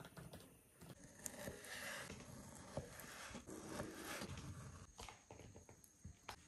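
A chef's knife slicing through guanciale and knocking on a wooden cutting board in irregular strokes, with short scrapes of the blade through the fatty meat.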